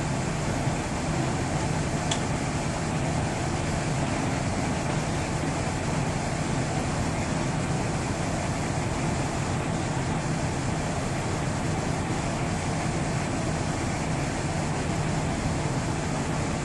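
Heavy diesel engine running steadily at idle, a constant low hum under an even mechanical rumble.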